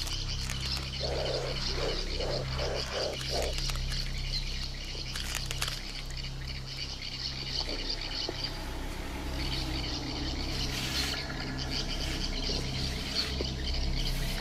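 Wetland wildlife ambience: a steady high-pitched chirring chorus of frogs and insects over a low steady hum. About a second in comes a quick run of about six low pulsed calls.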